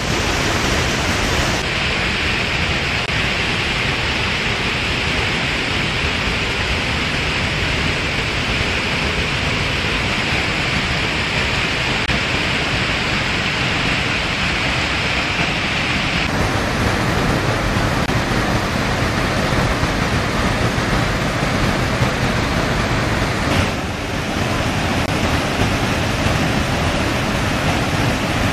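Fast mountain river rushing over rocks and rapids: a loud, steady roar of water whose tone shifts abruptly a couple of times.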